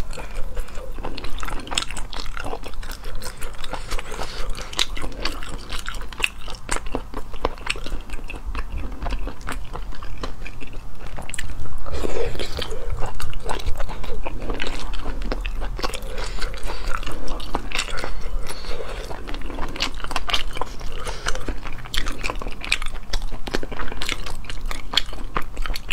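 Close-miked eating sounds: a woman sucking and chewing sea snail meat picked from the shells by hand, with many small irregular clicks and crackles.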